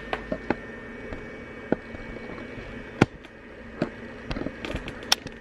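Scattered light clicks and taps as hands work the buttons of an RF skin-tightening machine's control unit, over a faint steady hum; the sharpest click comes about three seconds in and another near the end.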